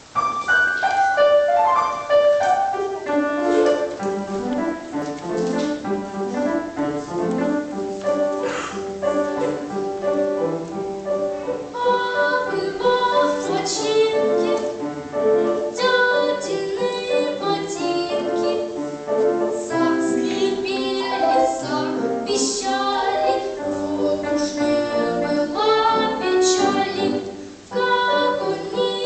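A nine-year-old boy singing a children's song to piano accompaniment.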